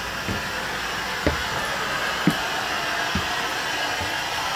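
Footsteps climbing into and walking across a motorhome's floor, five dull thumps about one a second, over a steady blowing noise like a running fan.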